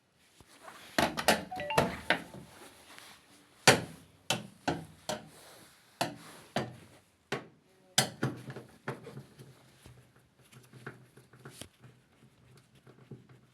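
Irregular knocks, clicks and clatters of tools and parts being handled during work on a tumble dryer. The sharpest knocks come about four and eight seconds in.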